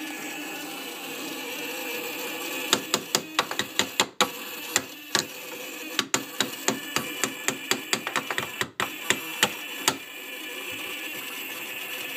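Ignition relay of a second-generation Toyota MR2 chattering in rapid, uneven clicks, about five a second, starting about three seconds in and stopping near ten seconds, while the swapped engine fails to crank. A steady Walbro fuel-pump hum runs underneath.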